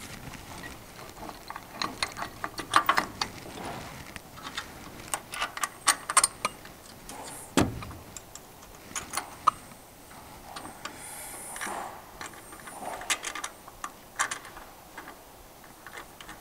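Small steel hardware clicking and clinking: washers and nuts being fitted and hand-threaded onto the clamp bolts of a steel trailer-jack bracket. There are irregular sharp clicks throughout and one duller thump about halfway through.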